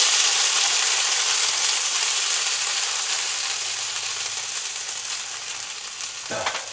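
Pre-cooked red beans sizzling loudly in a hot pan on a small woodstove, the sizzle dying down slowly as the pan cools. There is a small knock near the end.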